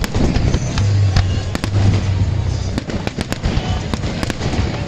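Fireworks going off: a rapid, irregular series of sharp bangs and crackles over a continuous low rumble.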